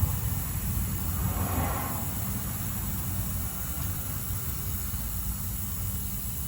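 Steady low background rumble, with a brief rustle of handling about a second in.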